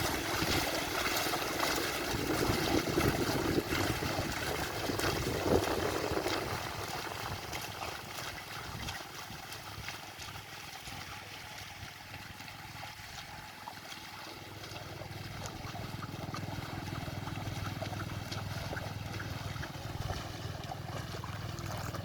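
Oxen drawing a plough through wet mud, with water and mud sloshing and splashing. A low steady hum comes in about two-thirds of the way through.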